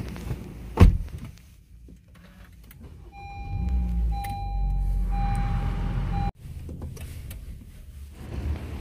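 A car door shuts with one loud thump. About three seconds later a Honda Civic's engine starts and runs with a low rumble, while a dashboard warning chime sounds in a steady electronic tone. The chime and the engine cut off suddenly about six seconds in.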